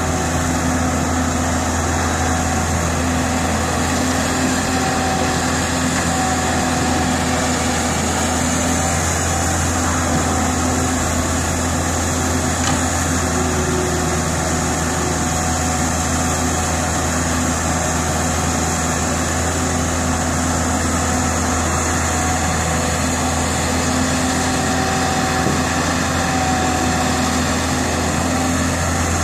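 Diesel engine of a Caterpillar E120B crawler excavator running steadily as the machine digs soil and swings its boom to load a dump truck.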